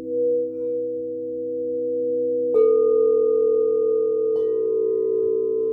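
Singing bowls ringing together in steady, overlapping tones. One is struck about two and a half seconds in and another near four and a half seconds, each adding a fresh ringing note over the held drone.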